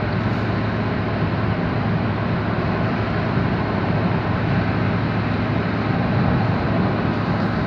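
Steady road and engine noise of a car driving at an even speed, with a constant low hum.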